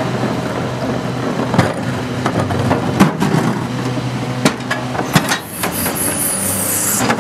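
Rear-loader garbage truck (Crane Carrier chassis, Heil 5000 body) engine running steadily, with several sharp knocks and clanks as a wheeled trash cart is rolled up and tipped into the hopper; the loudest knock comes about three seconds in.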